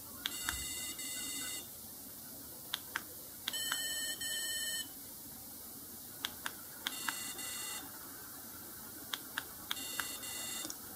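BlackBerry 7230 playing one of its built-in ringtones through its small speaker, and it is hard to hear. The tone repeats about every three seconds, four times: a couple of short ticks, then a trilling electronic ring in two parts.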